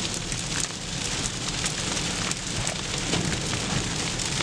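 Sleet pattering on a surface: a dense, steady scatter of small ticks, with a low steady hum underneath.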